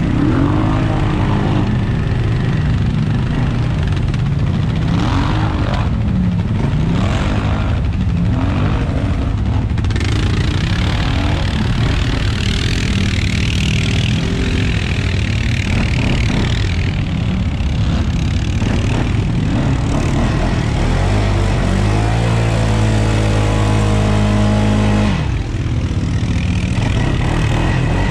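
Off-road vehicle engine running under changing throttle, its pitch rising and falling repeatedly, then holding a steady pitch for the last few seconds with a brief drop shortly before the end.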